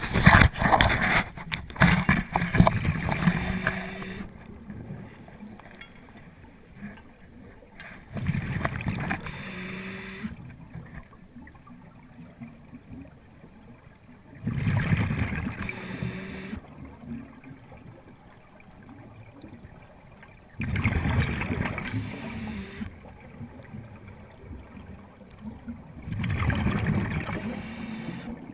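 Scuba diver breathing through a regulator underwater: five bursts of exhaled bubbles, each a couple of seconds long, come about every six seconds, with quieter gaps between breaths.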